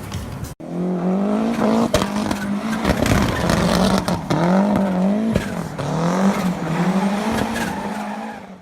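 Dune buggy's Yamaha R1 motorcycle engine revving on a test drive, its note rising and falling again and again, with scattered knocks and clatter from the chain-driven rear end.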